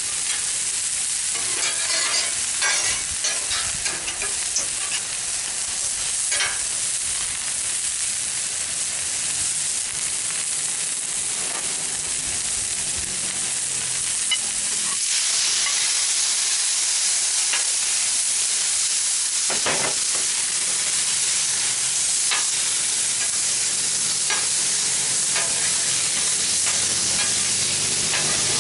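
Stir-fry vegetables sizzling in oil on a Blackstone flat-top griddle, with scattered clicks and scrapes of stirring. About halfway through the sizzle turns louder and stays that way.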